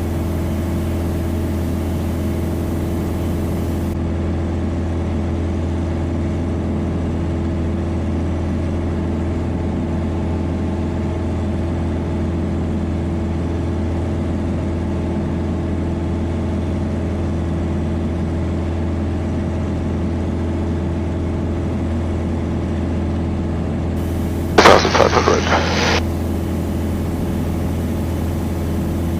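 Piper Dakota's single piston engine droning steadily in flight. About 25 seconds in, a brief loud crackling burst cuts across it for about a second and a half.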